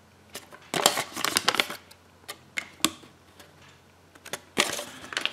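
Thin paper leaflet rustling and crackling in the hands as it is unfolded and turned over. There is a dense cluster of crackles about a second in and a shorter one near the end, with a few separate clicks between.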